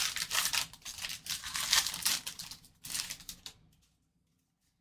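Wrapper of a trading card pack being torn open and crinkled: a run of crackly rustling with a brief break after nearly three seconds, stopping a little more than a second before the end.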